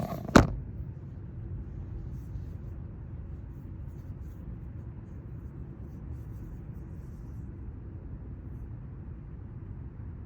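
Steady low rumbling background noise, with a sharp click about half a second in.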